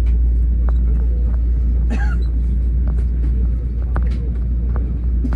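Steady low rumble inside an Airbus A321 cabin before departure, with scattered light clicks and knocks and a brief clatter about two seconds in.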